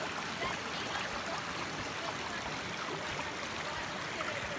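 Rainforest creek running over rocks: a steady rush of water with small trickling, gurgling sounds.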